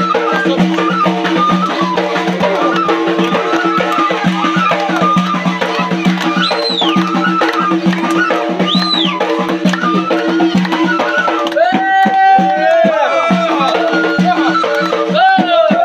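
Live Chaoui folk music: a gasba reed flute plays an ornamented melody over a held drone and the beat of a bendir frame drum. Twice in the second half a loud, warbling trill rises over the music.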